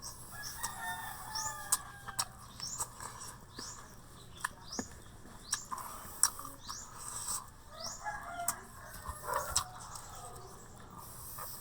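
Birds calling: a string of short, high, rising chirps, with lower clucking calls and scattered sharp clicks.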